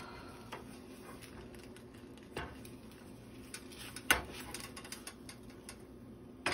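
Spatula scraping and knocking against a stainless steel frying pan as a grilled cheese sandwich is slid loose and turned over: a few scattered clicks, with one sharp knock about four seconds in.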